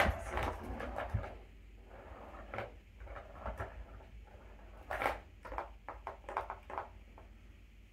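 Kittens pawing at a plastic ball-track toy: scattered light taps, clicks and rattles of paws on the plastic track, with a quick run of clicks about five to seven seconds in.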